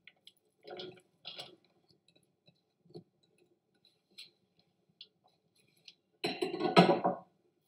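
Chopped onion being tipped from a small bowl onto minced meat in a steel mixing bowl: two soft thuds about a second in, then a few faint light taps. Near the end a much louder sound lasting about a second.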